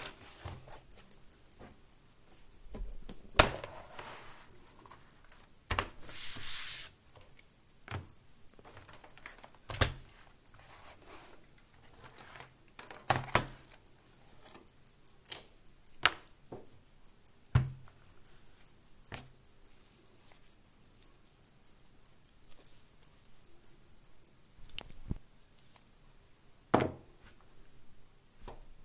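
Desk items being set down and moved on a leather desk mat: scattered knocks and thuds, and a few seconds of rustling as the mat is laid out. Under them runs a fast, even ticking of about four ticks a second, which stops near the end.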